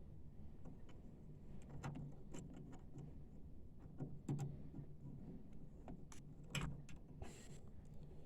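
Scattered light clicks and taps of hands handling the printer's small parts while fitting the ink-pipe holder, over a faint steady low hum.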